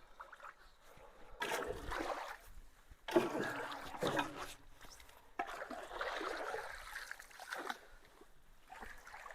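Water splashing and sloshing in three bouts, about a second and a half in, around three seconds in, and from about five and a half to nearly eight seconds, as piled leaves are stirred into the backed-up water at the mouths of road culverts.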